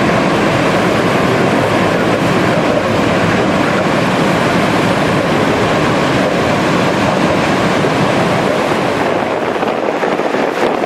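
Steady engine and propeller noise heard inside the cabin of a Cessna 182RG in flight: a loud, even rush with no breaks.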